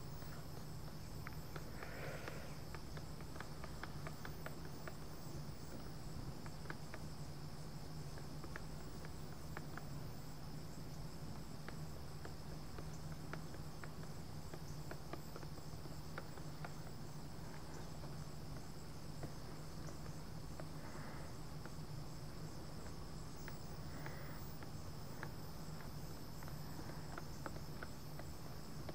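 Steady high chirring of insects, with faint clicks and scrapes of a stirrer working through a can of paint and a low steady hum underneath.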